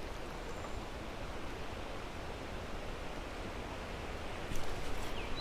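Steady rush of creek water running over rapids, with a few faint ticks near the end.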